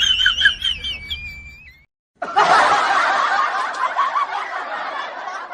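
A person laughing: high-pitched, stifled giggling that breaks off briefly about two seconds in, then a longer stretch of shaking laughter that fades toward the end.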